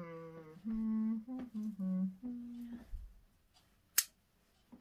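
A person humming a short tune of several held notes for about three seconds, followed by a single sharp click about four seconds in.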